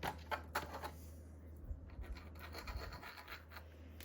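Small 3D-printed plastic model parts being handled: a few light clicks, then scratching and rubbing of plastic against plastic as an awning is pressed into place above a window.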